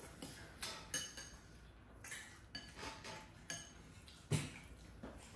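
Metal spoons clinking and scraping against porridge bowls while eating: a scatter of light, irregular clinks, the loudest about four seconds in.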